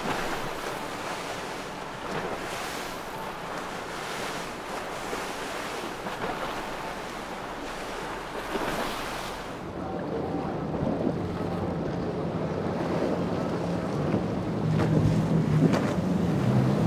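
Wind and rushing water from a fast boat's spray. From about halfway in, outboard engines running at speed come in and grow louder toward the end as a boat with quad Yamaha 300 outboards passes close by.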